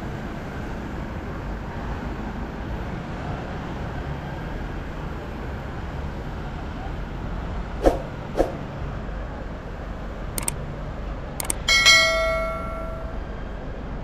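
Steady city street traffic noise. It is broken by two sharp knocks about halfway through, a few clicks, and near the end one loud metallic strike that rings on and dies away over about a second.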